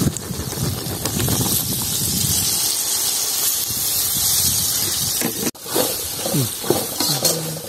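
Chickpea curry sizzling in a pan over the fire, a steady hiss that breaks off abruptly about five and a half seconds in.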